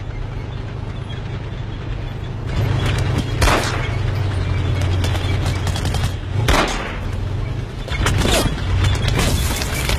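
War-film battle soundtrack: gunfire and explosions over a steady low rumble, with sharp blasts about three and a half, six and a half, eight and nine seconds in.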